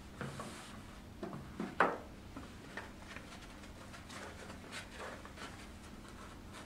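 Disinfectant wipe rubbing over a plastic tray, with soft rustling and light clicks as the tray is lifted and handled; one sharper knock about two seconds in.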